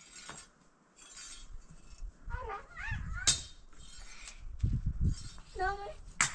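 A couple of sharp clinks of hard objects, about three seconds apart, with short high-pitched wavering calls between them.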